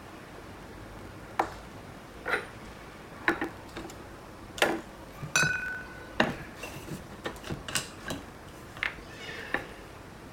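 Cocktail barware being handled: a dozen or so light, irregular clinks and taps of glass and metal, one about five seconds in leaving a brief ringing tone.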